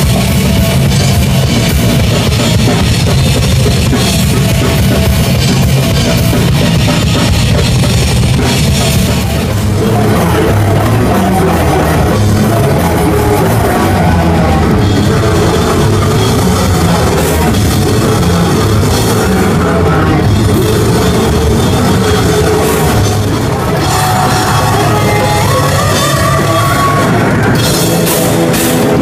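Death metal band playing live, loud: guitars over a drum kit and cymbals, with the riff changing about ten seconds in.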